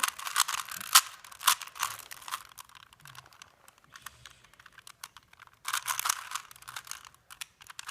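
Plastic Rubik's Cube being turned quickly by hand, its layers clicking and clacking in rapid runs: a dense flurry of turns at the start, a sparser stretch in the middle, and another quick run about six seconds in.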